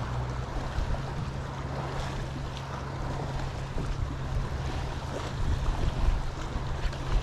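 Strong wind buffeting the microphone in gusts, over waves slapping against a boat hull, with a steady low hum underneath.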